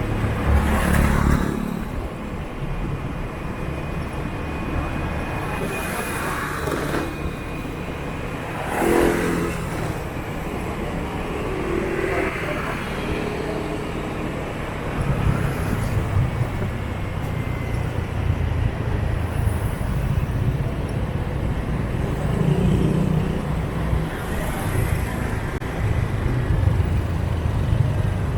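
City motorbike traffic heard from a moving scooter: a steady low engine rumble, with other motorbikes passing close by every few seconds, the loudest about a second in and about nine seconds in.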